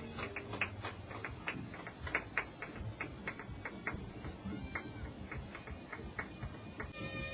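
Light, sparse percussion clicks and taps, several a second and unevenly spaced, in a quiet passage of a live jazz band's set heard through a lo-fi audience recording. A held pitched note comes in near the end as the band resumes.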